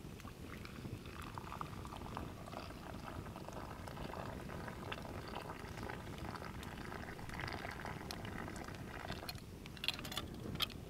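Water bubbling at a boil in a camp pot, a dense steady bubbling, with a few sharp clicks near the end.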